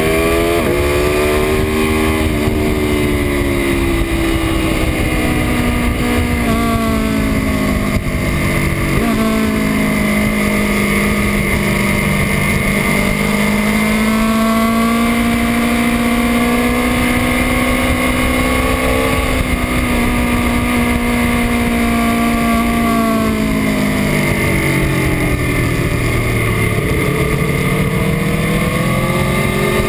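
Aprilia Tuono V4 1100 RR's V4 engine on a track lap, its pitch climbing under throttle and falling off for corners and gear changes, with a sudden drop about nine seconds in, over constant wind rush.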